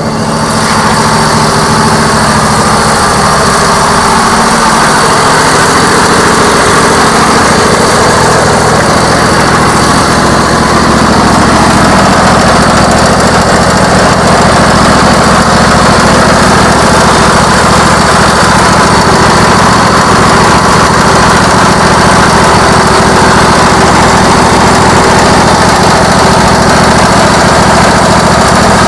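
Riding lawn tractor's small engine running steadily, swelling over the first second and then holding an even note. The engine is turning its alternator to charge the tractor's battery, which feeds a power inverter, so the tractor is acting as a generator.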